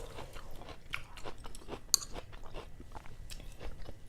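Close-miked chewing of a crunchy mouthful of food: irregular crisp crunches and clicks, with one sharper crunch about two seconds in.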